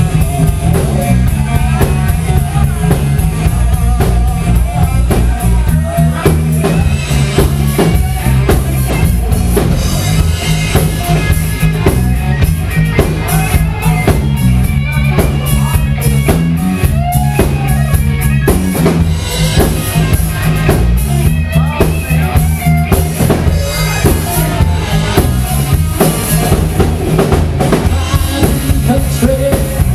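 Live country-rock band playing an instrumental passage with no singing: electric guitar over a steady electric bass line and a drum kit.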